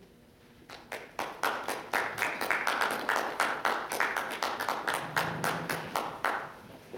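Audience applauding: close individual claps over a wash of clapping, building quickly and fading away near the end.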